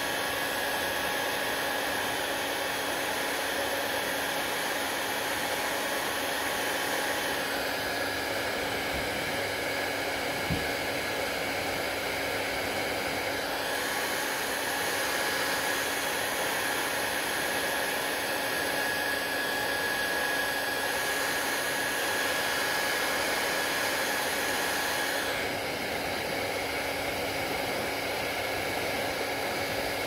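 Handheld hair dryer blowing steadily close by: a full rush of air with a faint steady whine in it. The tone of the rush shifts slightly a few times as the dryer is moved around the hair.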